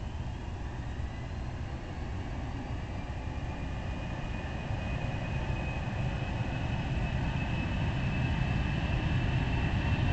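Boeing 747SP's four jet engines, one of them a Pratt & Whitney Geared Turbofan demonstrator, at takeoff power during the takeoff roll. It is a deep rumble with a thin high whine, growing steadily louder as the jet comes closer.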